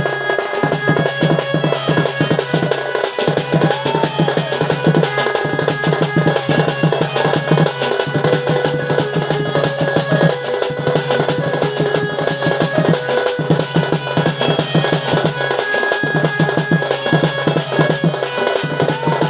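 Sambalpuri folk drum ensemble playing a fast, dense rhythm of rapid drum strokes with a pulsing low bass, a thin melody line held above it.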